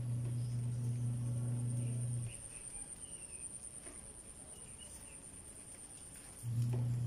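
A steady low hum stops abruptly a little after two seconds in and comes back near the end. Under it runs a steady high whine, with a few faint bird-like chirps.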